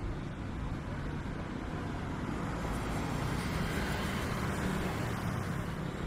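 Street traffic: a steady wash of motor vehicles passing by.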